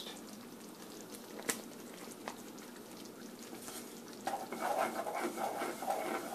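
Wooden spatula stirring a thick etouffee sauce in a cast iron skillet, starting about four seconds in as a steady rhythm of wet strokes, roughly two to three a second. Before that, only a faint hiss with a couple of light clicks.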